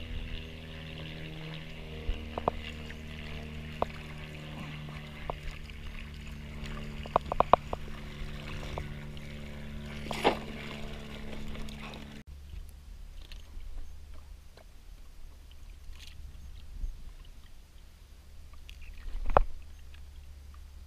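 Scattered knocks and taps of gear handled on a plastic kayak, over a steady low hum. The hum cuts off about twelve seconds in, leaving faint ticks and one louder thump near the end.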